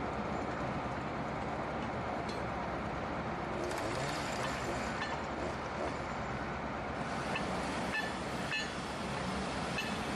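Steady engine noise of work machinery running, with a few faint clinks.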